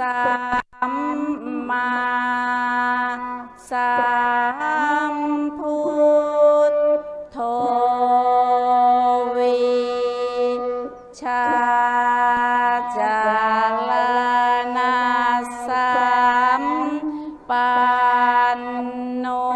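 A mantra sung as a slow melody, in long held notes that slide to a new pitch every few seconds, with brief pauses between phrases.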